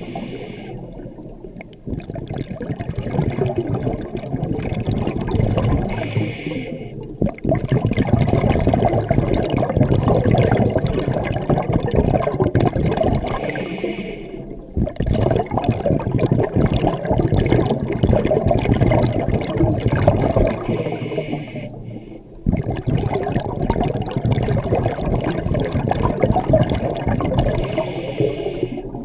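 Scuba diver breathing through a regulator underwater, four breaths in all. Each breath is a short hiss of inhalation, followed by several seconds of exhaled bubbles gurgling up past the camera.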